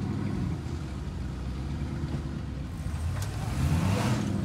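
Off-road buggy's engine idling low, then revving up briefly near the end with a rush of noise.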